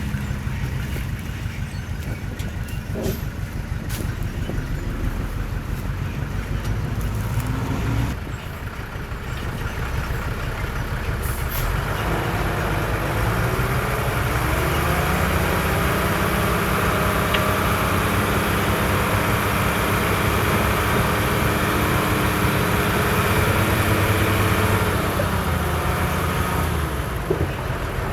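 Heavy diesel earthmoving machinery working: a bulldozer or dump truck engine runs throughout. About twelve seconds in it grows louder, with a high hiss over it, and it eases off again near the end.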